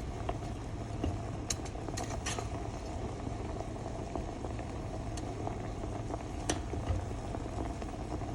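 Pot of herbal cough tea boiling: steady bubbling noise with a few sharp clicks.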